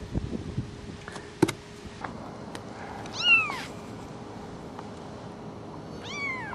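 Ten-day-old kittens mewing: two high, thin mews, one about three seconds in and one near the end, each rising briefly and then falling in pitch.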